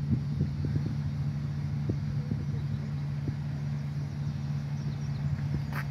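Steady low hum of a diesel locomotive engine idling in the distance, with wind buffeting the microphone. A brief hiss comes near the end.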